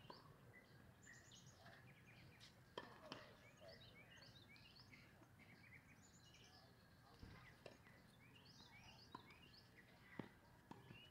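Near silence: faint birds chirping over a low outdoor background hum, with a few faint knocks scattered through.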